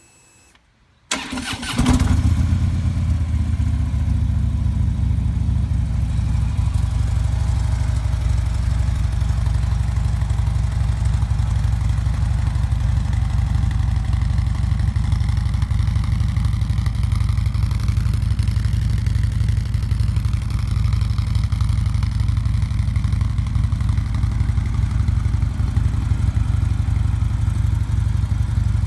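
2015 Harley-Davidson Ultra Limited's Twin Cam 103 V-twin cold-started through a decat header and Vance & Hines Monster Rounds mufflers fitted with quiet baffles: the starter cranks briefly about a second in, the engine catches, then settles into a steady idle.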